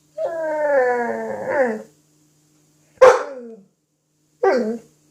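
Chocolate Labrador puppy vocalizing: a long howl that falls in pitch for nearly two seconds, then a sharp loud bark about three seconds in trailing off into a whine, and a shorter yelp near the end.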